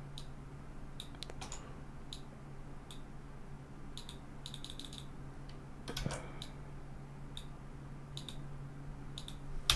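Computer keyboard keys and mouse buttons clicking at uneven intervals, about a dozen taps in all with a sharper one near the end, over a steady low hum.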